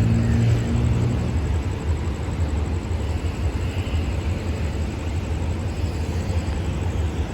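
Diesel engine of a Hitachi diesel-electric locomotive running, a steady low hum that fades about a second in, leaving a low uneven rumble.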